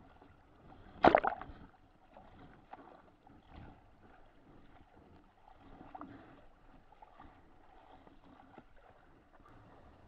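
Choppy water sloshing and slapping around a capsized foiling dinghy's hull, heard from a camera at the waterline, with a loud, sharp slap about a second in and smaller splashes and knocks after it.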